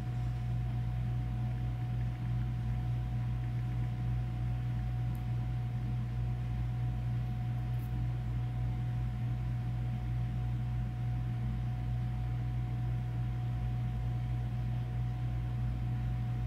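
Steady low hum under an even hiss, with a faint steady high tone on top and no breaks or events: background room tone.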